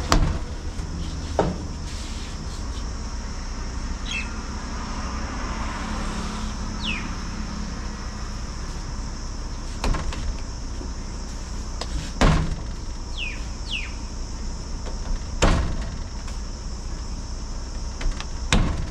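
About six sharp knocks on a steel-topped work table as hands press and flatten kulcha dough, the loudest two near the middle and later on. Under them is a steady low outdoor rumble and a steady high hiss, with a few short falling bird chirps.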